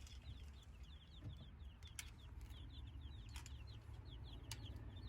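Young black Australorp chicks peeping faintly: a steady stream of short, falling high-pitched peeps, several a second, from the flock together. A few faint clicks come through, one about two seconds in.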